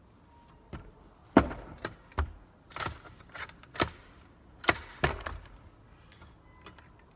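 Irregular sharp knocks and clicks of tricycle parts being handled and fitted together, as the parent push handlebar tube is worked into its mount. There are about nine of them, two louder than the rest, and they stop a couple of seconds before the end.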